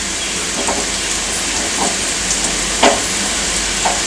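Gatta and masala frying in a metal kadhai with a steady sizzle, broken four times by short scrapes or knocks of the spatula against the pan.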